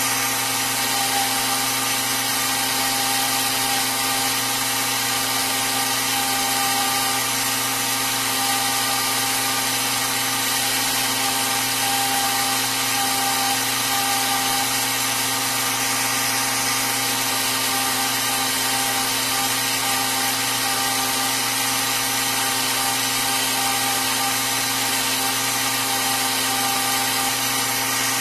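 Belt grinder running steadily, its motor humming under the hiss of the abrasive belt, as a hardened steel knife blade is ground on it to take out a warp left by heat treatment.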